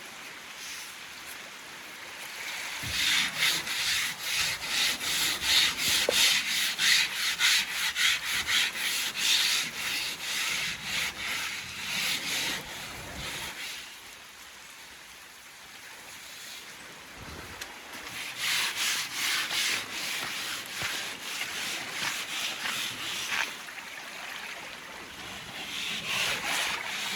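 Quick, rhythmic scrubbing strokes of a coarse abrasive against a boat's hull, rubbing off the growth that fouls it and drags the boat. The scrubbing comes in two long spells with a quieter stretch between them.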